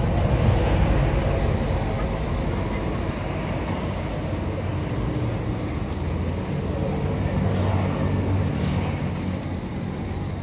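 Road traffic passing close by, a steady engine rumble that swells as vehicles go past, near the start and again about seven seconds in. Faint voices are heard under it.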